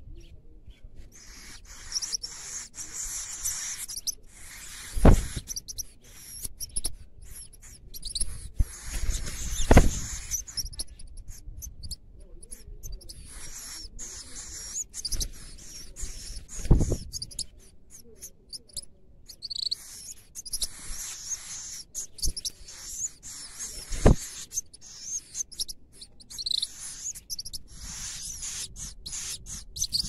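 Flycatcher nestlings begging in the nest: bouts of thin, high-pitched chittering, starting and stopping several times. About four loud thumps stand out over the calls.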